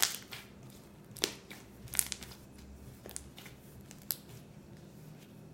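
Slime with small decorative stones mixed in, squeezed and stretched by hand, giving sharp wet clicks and pops of trapped air about once a second.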